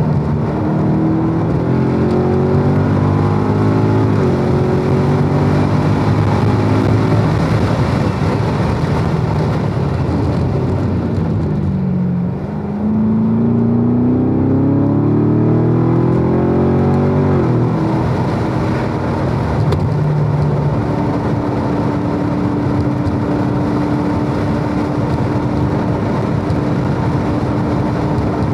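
Chevrolet Corvette C7 Grand Sport's 6.2-litre V8 heard from inside the cabin at speed on track, over steady wind and tyre noise. The engine pitch climbs under acceleration, falls as the car slows for a corner about halfway through, then rises again out of the corner and breaks off at an upshift to fourth about two-thirds of the way in. A steady drone follows at constant throttle.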